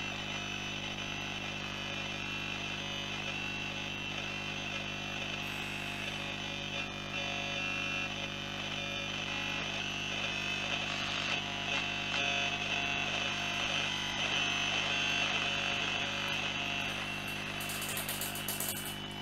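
Philips BF401A valve radio's loudspeaker giving shortwave static and hiss while tuned to a station that comes in very faintly, over a steady low mains hum.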